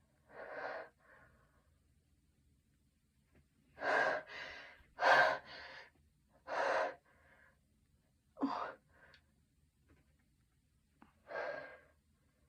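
A person's sharp gasping breaths, six in all, several each followed by a softer breath out: the catching inhalations of a sneeze that is building but does not come.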